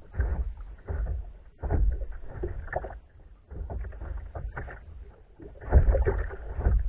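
Water splashing and sloshing around a kayak on the water, in irregular bursts about once a second, with a low rumble under them.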